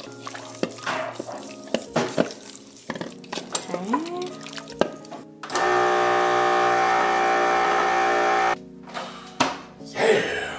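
Countertop vacuum sealer's pump running steadily for about three seconds, drawing the air out of a bag of venison, then cutting off suddenly. Scattered clicks and handling noises come before it.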